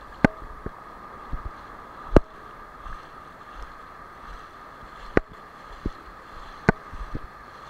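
Shallow ocean surf washing and fizzing around the angler's legs, with wind on the microphone. A few sharp clicks or knocks come through it at irregular moments.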